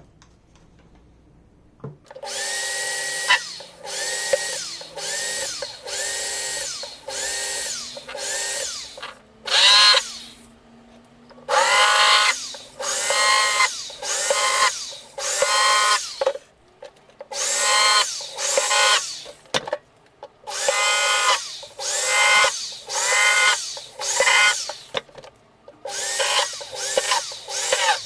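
Cordless drill/driver run in many short trigger pulses, each spinning up and winding down, in groups separated by brief pauses.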